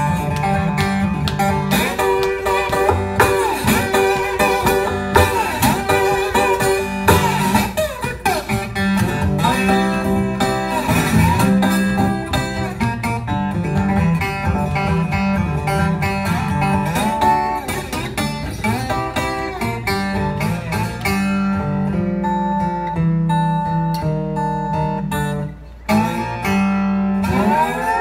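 Acoustic guitar in open G tuning played slide-style, a Delta blues instrumental break with gliding slide notes over a steady repeated bass. It drops out briefly a couple of seconds before the end, then comes back in.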